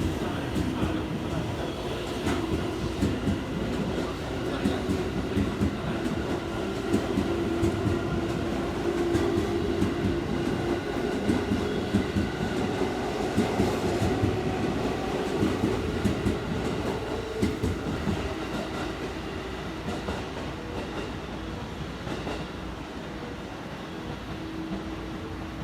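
JR Special Rapid Service electric train pulling out of the station: a steady motor hum under repeated wheel knocks and clatter over rail joints and points. The sound eases off over the last several seconds as the train moves away.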